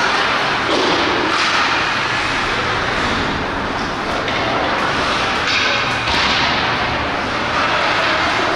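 Ice hockey play on a rink: a steady scraping hiss of skates on the ice, with a few sharp cracks and thuds from sticks, puck or boards.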